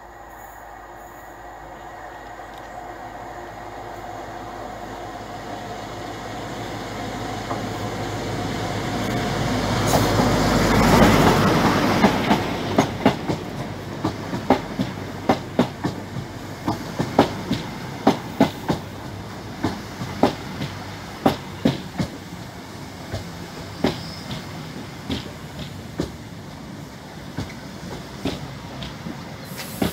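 InterCity 125 High Speed Train running into the station: the leading diesel power car grows steadily louder to a peak about 11 seconds in as it passes. Then the coaches roll by with rhythmic clicks of the wheels over the track joints, spacing out as the train slows.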